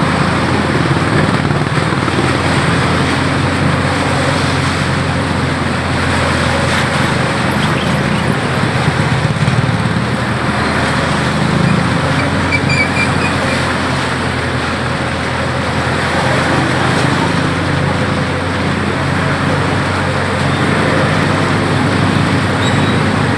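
Road traffic: motor vehicle engines running with a steady hum and road noise.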